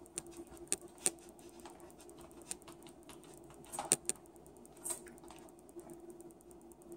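Metal knife and fork clicking and scraping against a plastic takeout container while cutting food: a scatter of light clicks, the loudest about a second in and a pair around four seconds in.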